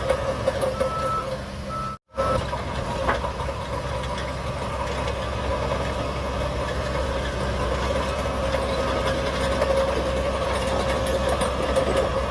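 Shantui DH17C3 bulldozer's diesel engine running steadily while working. A steady high beep sounds during the first two seconds, and the sound cuts out completely for a moment about two seconds in.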